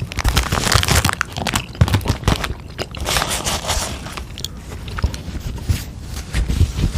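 Close-miked biting and chewing of crunchy food, with a stream of irregular crisp crunches and crackles and soft wet mouth sounds.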